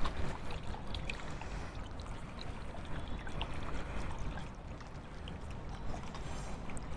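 A finger stirring soapy water in a shallow steel plate, a soft, faint sloshing and trickling with small drip ticks, as hand-wash soap is mixed in to raise foam.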